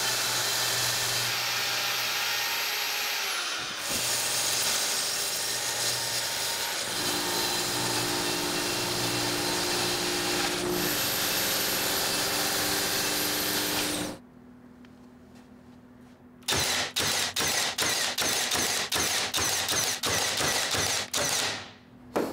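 Track saw running steadily as it cuts along the edge of a plywood sheet for about fourteen seconds, then stops. After a short lull comes a rapid series of short bursts, about two a second.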